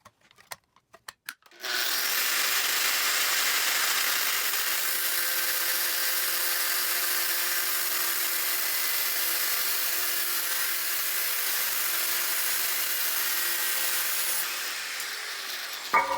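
Angle grinder cleaning rust off a steel ring: after a few light taps it starts about two seconds in, runs steadily for about twelve seconds, then winds down near the end, followed by a sharp knock.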